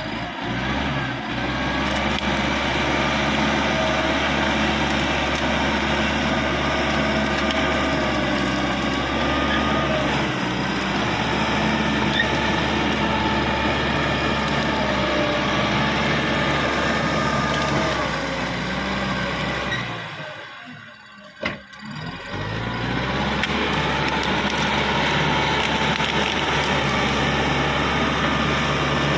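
Caterpillar D5K XL bulldozer's diesel engine running steadily under work, with faint squeals above the engine note. The sound drops away for about two seconds some twenty seconds in, then comes back the same.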